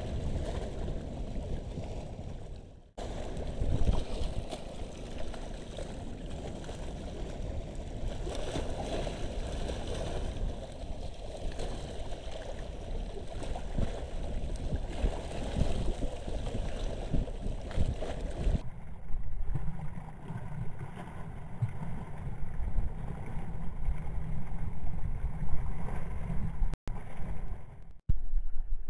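Wind blowing over the microphone with choppy sea water lapping, heavy in the low end. The sound drops out for a moment about three seconds in, and about two-thirds of the way through it turns duller and lower.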